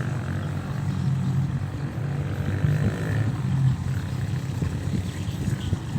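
Engine of a rice-harvesting machine running with a steady low drone, turning rougher and uneven about four seconds in.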